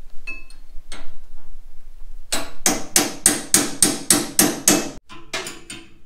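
A hammer struck in a quick, even run of about nine blows, about three a second, followed by a few lighter taps.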